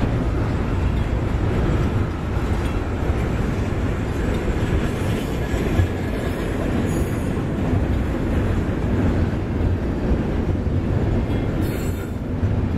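Double-stack intermodal well cars loaded with shipping containers rolling steadily past: a continuous low rumble of steel wheels on rail.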